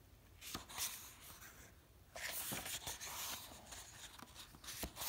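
Pages of a hardcover picture book being handled and turned: soft paper rustles in two spells, with a few light taps.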